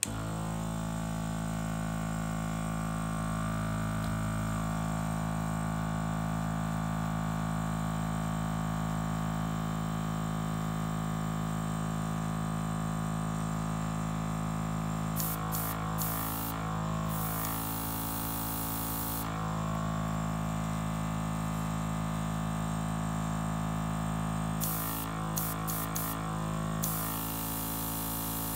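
KKMoon mini airbrush compressor switched on, its motor running with a steady hum. About halfway through and again near the end, the dual-action airbrush lets out hissing bursts of air as its trigger is pressed, some brief and some about two seconds long.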